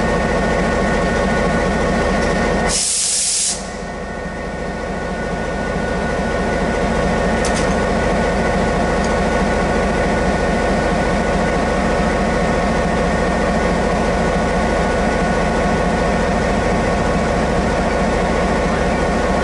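EMD G12 diesel-electric locomotive idling steadily, a low hum with several steady whining tones over it. About three seconds in, a short, loud hiss of air.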